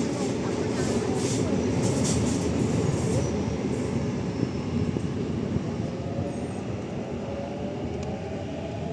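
Sydney electric suburban train running past on the track: a steady rumble of wheels on rail, with sharp clicks over the rail joints in the first few seconds and a faint rising whine in the second half.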